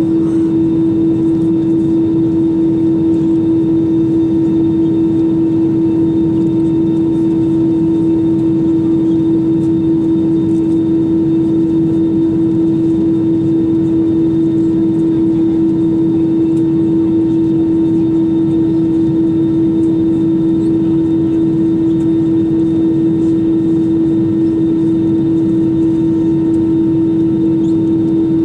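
Airbus A320-200 cabin noise with the engines running: a steady even hum with one strong unchanging engine tone and fainter higher tones.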